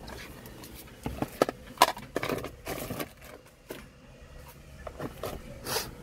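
Clicks, knocks and scrapes of objects being handled inside a car, clustered about one to three seconds in with the sharpest knock near the middle of that run, and a few more near the end.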